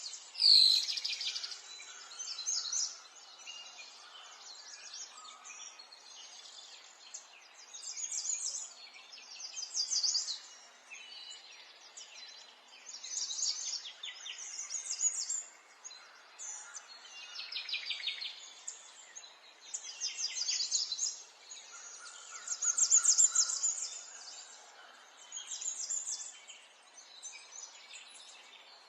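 Small songbirds chirping and twittering in repeated bursts every couple of seconds over a faint steady background hiss, with one sharp falling call just under a second in.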